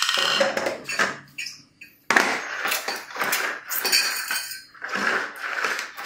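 Plastic vacuum-cleaner attachments and metal extension tubes clattering and knocking against a tile floor as they are handled and fitted together, a run of short knocks and scrapes.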